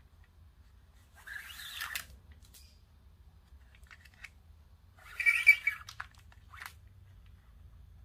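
550 nylon paracord being pulled through a knot and cinched, two short rasping swishes of cord rubbing on cord, the second one louder, followed by a few faint clicks.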